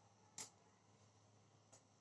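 Near silence with a low steady hum, broken by one sharp click about half a second in and a fainter click near the end.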